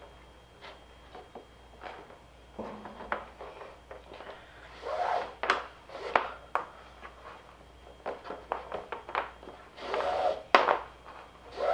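Braided rope being handled and pulled through a knot around a wooden crossbar, sliding and rubbing over a plastic sheet with light knocks. It comes in two louder spells of rope rushing through, about five seconds in and again near the end.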